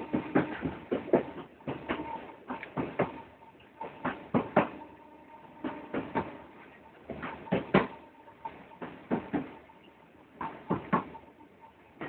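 Wheels of a Merseyrail electric train banging over faults in the worn track, heard inside the carriage as a run of sharp, irregular knocks, often two or three close together, over a faint steady whine. The track was due to be repaired.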